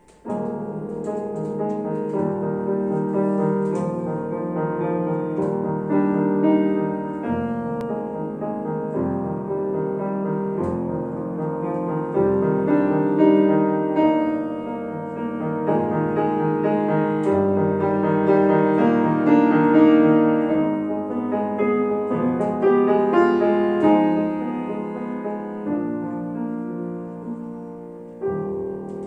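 Grand piano played solo, the music starting right at the opening with the first notes and running on with chords and a melody.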